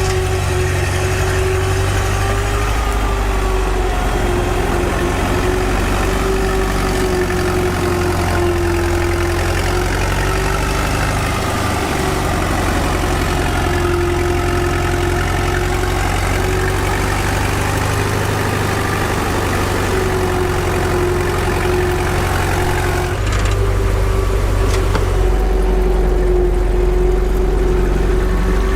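A small motor running steadily with a slightly wavering whine over a constant low hum. The low hum shifts about 23 seconds in.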